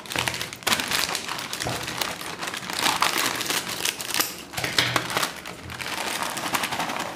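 Crinkly plastic snack packet being handled, snipped open with scissors and tipped out onto a paper plate: a continuous run of crinkling with short sharp snips.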